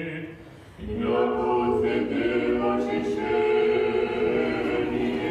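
Orthodox liturgical choir singing a cappella in sustained chords, coming in loud about a second in after a softer chanted line fades.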